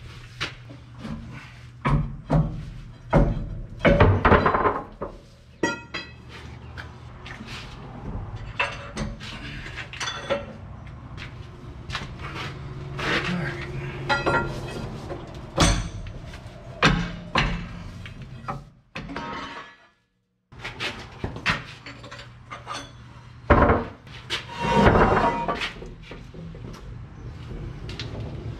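Irregular metal knocks and clanks from tools working on a truck's Hendrickson Haulmaax steel suspension beam as it is freed from its mounting bolts, over a steady low hum.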